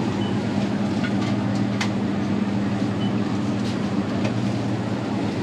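Steady low electric hum of refrigerated display shelving and shop ventilation, with a few faint clicks.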